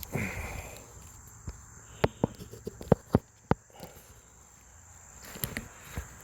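Steady high insect chirring in the background, with a handful of sharp clicks and knocks about one and a half to three and a half seconds in.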